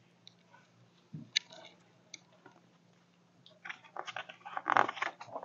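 Quiet paper-handling noise from a picture book: a few soft clicks, then a denser crinkling rustle from about three and a half to five seconds in as the page is turned.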